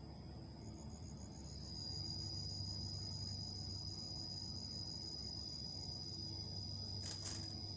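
Insects, crickets, trilling in a high steady chorus: a fast pulsing trill comes in under a second in and a steady high trill joins about a second later. A brief hiss near the end.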